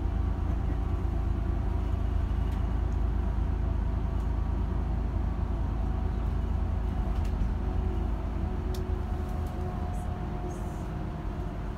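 Bus cabin noise while driving: a steady low engine drone and road rumble, with a few faint clicks and rattles. It eases off slightly toward the end.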